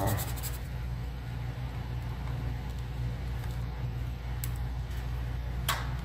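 A few light clicks of a laptop's plastic bottom cover, its clips snapping into place as it is pressed down by hand, the sharpest click near the end. A steady low hum runs underneath.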